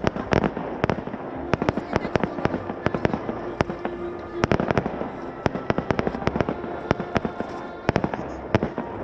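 Fireworks going off in rapid, irregular succession, many sharp bangs and cracks a second over a continuous rumble.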